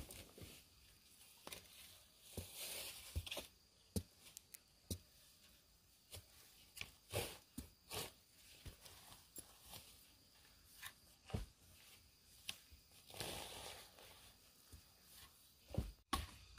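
Faint, scattered taps and knocks at irregular intervals, with two short stretches of rustling.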